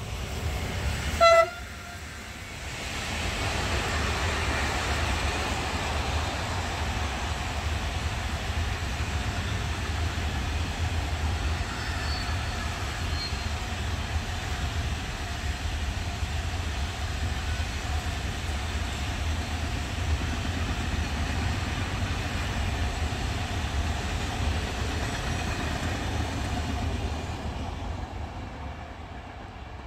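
A short, loud freight-train horn blast about a second in. Then a long freight train of covered wagons rolls past, its wheels and wagons making a steady rumble on the rails that fades near the end.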